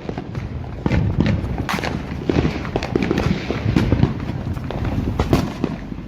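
Fireworks going off: a rapid run of bangs and pops over a low rumble.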